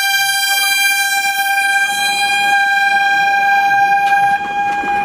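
Race starting horn: a hand-held air horn blown in one long, steady blast on a single high note, signalling the start of a road race.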